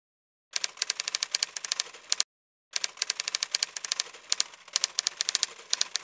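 Typewriter keystrokes, rapid clattering clicks in two long runs split by a half-second pause, as text is typed onto the screen.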